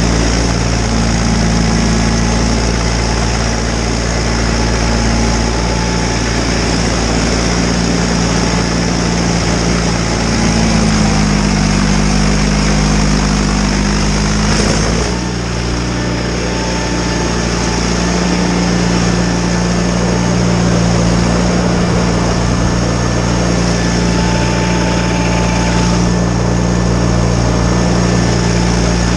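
John Deere 318 garden tractor's Onan two-cylinder engine running steadily while clearing snow with its front snowblower, with a steady high whine over it. The engine note wavers for a few seconds about halfway through, then settles again.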